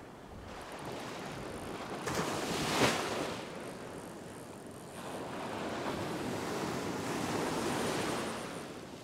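Shallow beach surf breaking and washing in around the legs: two waves, the first building to a sharp crash about three seconds in, the second a longer swelling wash from about five to eight seconds in.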